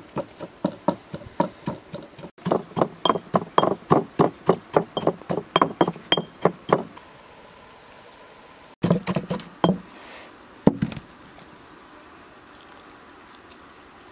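Stone pestle pounding chillies in a stone mortar: sharp, even knocks about four a second for some seven seconds, then after a pause a quick cluster of knocks and one last loud knock.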